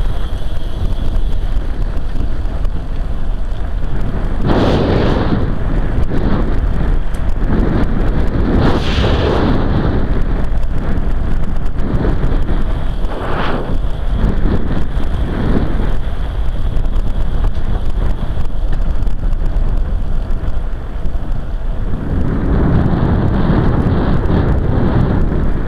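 Wind buffeting the microphone of a camera riding along on a moving recumbent trike: a steady low rumble that swells in gusts several times, with a longer gust near the end.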